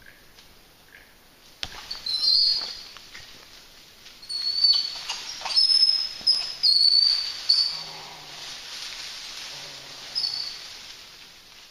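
A run of loud, high, short calls from animals up in the rainforest canopy, coming in quick succession from about two seconds in, then thinning to a last call near the end.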